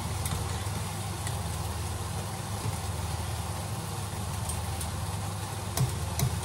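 Cooker hood fan running with a steady low hum over a pot of boiling water. Near the end come a few light metal clinks as cooked spätzle is lifted out with a strainer and slotted spoon.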